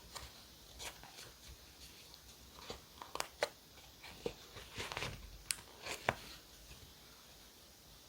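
Journaling handwork sounds: paper and stickers being handled, a string of light crinkles, clicks and taps that cluster in the middle seconds.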